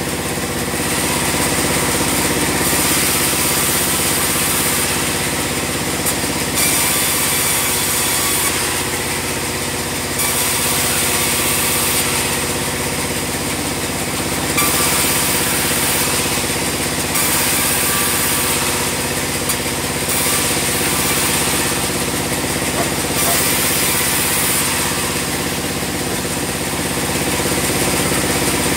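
Bandsaw sawmill running steadily under a constant engine or motor hum, with a high hiss that swells and fades every few seconds.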